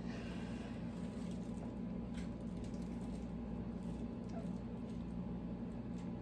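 A steady low hum, with a faint tap or two from small handling, one about two seconds in.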